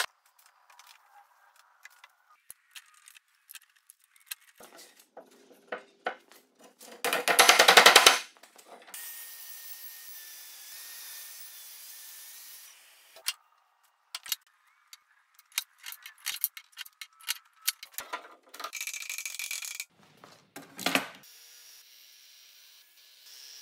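Woodshop work sounds in quick cuts: knocks and clicks of clamps and wide boards being handled, a loud rasping burst about seven seconds in, and a few seconds of steady hiss after it.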